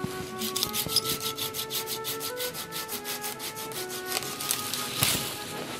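Hand saw cutting through a pine limb in quick, even back-and-forth strokes that stop about two-thirds of the way through, over background music.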